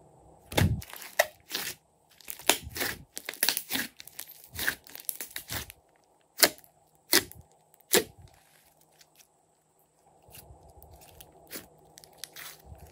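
Hands kneading and stretching a large mass of glossy slime: a run of sharp, sticky clicks and pops through the first eight seconds, then only faint squishing.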